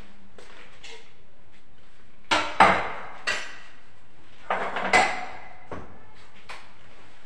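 Mixing bowls and a spatula knocking and clinking on a kitchen countertop. There are two clusters of sharp knocks, about two seconds in and about five seconds in.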